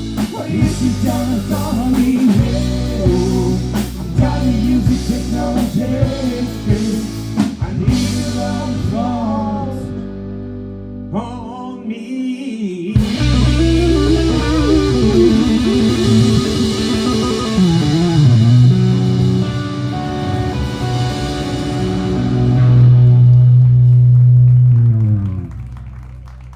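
Rock song with a singing voice, guitar and drums; it stops briefly about halfway through, then ends on a long held note that fades out near the end.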